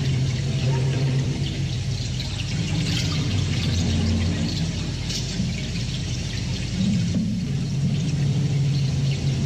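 Loud, heavily distorted live punk rock over a droning low note that shifts pitch every second or two. The lo-fi recording blurs the band into a continuous noisy wash.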